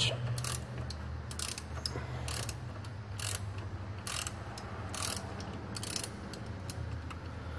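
A 3/8-drive ratchet with a 16 mm socket clicking in short bursts, about once a second, as it loosens the nut on an alternator terminal. A steady low hum runs underneath.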